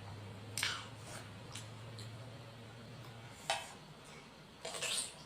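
Cutlery and dishes clinking: a handful of short, sharp clinks and a brief scrape near the end, over a low hum that stops about three seconds in.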